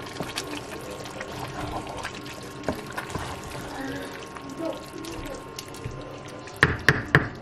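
Wooden spoon stirring a thick, wet stew of matembele greens and fish in a metal pot, with continuous wet squelching and small clicks. Near the end come a few loud sharp knocks.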